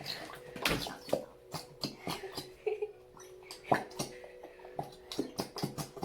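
Irregular clicks, taps and knocks of a plastic glue bottle and bowl being handled while glue is squeezed out, over a faint steady hum.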